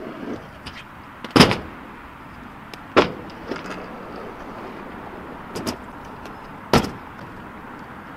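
Stunt scooter rolling on asphalt with a steady wheel rumble, broken by sharp clacks of the deck and wheels landing tricks: a loud one about a second and a half in, another about three seconds in, a smaller double clack a little later, and a loud one near the end.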